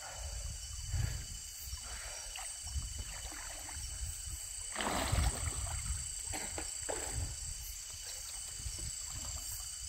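Muffled underwater noise picked up by a submerged camera on a night spearfishing dive: a steady low rumble with scattered soft knocks and a louder rush of noise about five seconds in.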